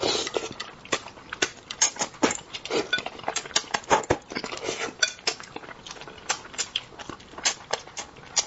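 Close-miked eating sounds at a meal of spicy braised fish: a dense, irregular run of sharp clicks and clatters of utensils and dishes mixed with biting and chewing. There is a louder clatter right at the start.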